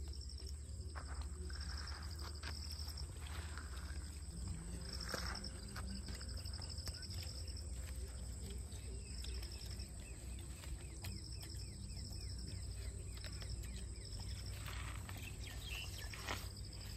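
Insects trilling in short, high-pitched bursts that recur every few seconds, over a low steady rumble.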